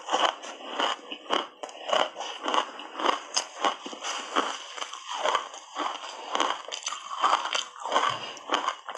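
Ice coated in sticky matcha powder being bitten and chewed, close-miked: a quick, irregular run of crisp crunches.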